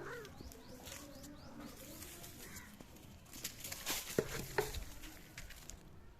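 Cat at play: scuffling and rustling with several sharp knocks bunched in the middle, and a few short high chirps in the first second or so.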